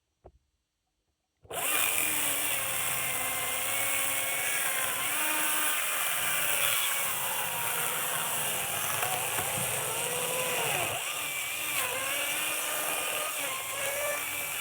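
Husqvarna 540i XP battery electric chainsaw starting abruptly about a second and a half in and running hard while cutting wood, its motor whine dipping and rising as the load changes.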